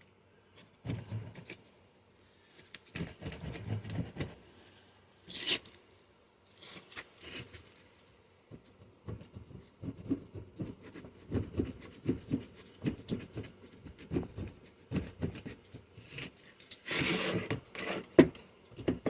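Irregular scraping, picking and clicking of a hand tool working glue and insulation off a microwave oven transformer's windings. There is a sharper click about five and a half seconds in and a longer scrape near the end.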